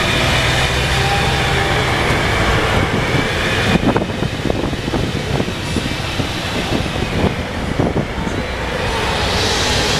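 Hino AK bus engine running under way with its aftermarket "jet" exhaust, heard from inside the cabin as a steady low drone. From about four seconds in, irregular knocks and rattles come through over it.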